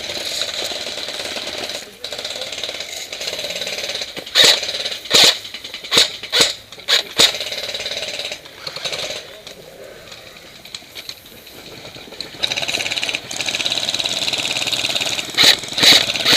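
Airsoft electric guns firing: long full-auto bursts with a fast, buzzing rattle at the start and again near the end, and a string of single shots in the middle.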